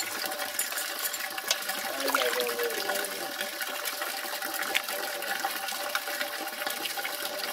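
Water sloshing in a steel bowl as hands wash and turn chopped buffalo skin and bone pieces, with many small clicks of the pieces knocking against the metal.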